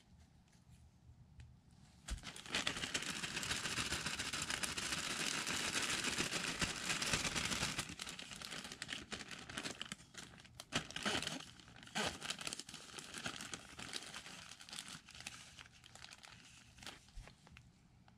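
Loud crinkling and rustling of something being handled close to the microphone. It runs continuously for about six seconds, then breaks into shorter, weaker bursts of crackling.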